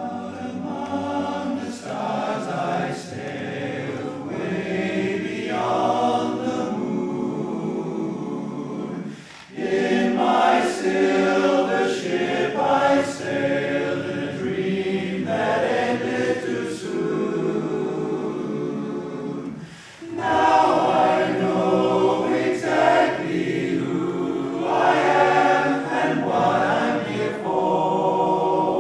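Men's barbershop chorus singing a cappella in close four-part harmony, with two brief breaks between phrases, about a third and about two-thirds of the way through.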